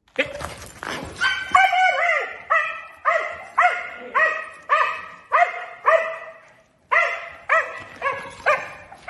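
A dog barking over and over in a steady rhythm, nearly two barks a second, with one short pause about two-thirds of the way through.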